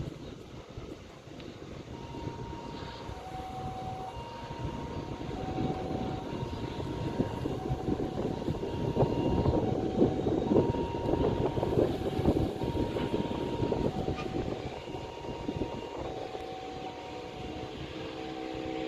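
Jet airliner taking off: a loud rushing engine noise builds to a peak about ten seconds in, then eases away. Throughout, a two-note electronic tone alternates high and low about once a second.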